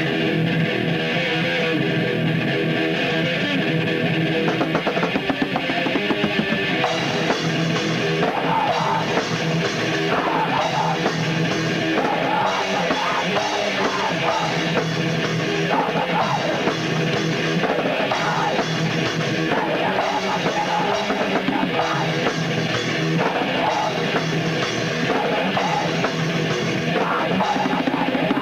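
Heavy metal band playing: distorted guitars and a pounding drum kit in a raw, lo-fi demo recording.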